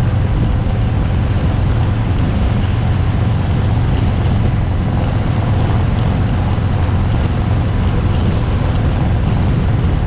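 2018 Harley-Davidson Fat Bob's V-twin engine running steadily while cruising, with heavy wind noise on the bar-mounted GoPro's microphone.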